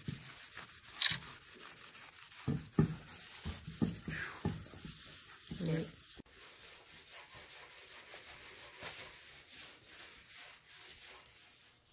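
Rubbing and scraping on a dirty surface, with a few soft knocks, as the dirt is wiped off. About six seconds in it breaks off sharply, and a fainter, steady rustle follows.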